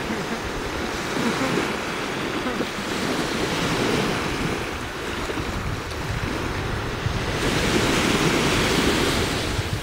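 Sea wash and wind blowing across the microphone: a steady rushing noise with a low rumble that swells twice, about a second in and again near the end.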